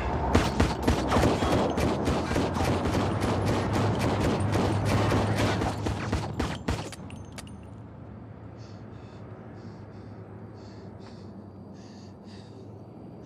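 A dense volley of rapid gunfire from many guns at once, cutting off about seven seconds in. After it, a quieter steady background with faint high chirps roughly twice a second.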